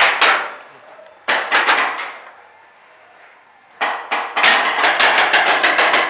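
Bursts of rapid paintball fire, sharp pops at about five a second, broken by two short lulls and picking back up near the end.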